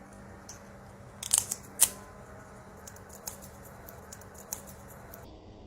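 A few sharp, light clicks: a quick cluster about a second and a half in, then a single louder click just before two seconds, with fainter scattered clicks afterwards.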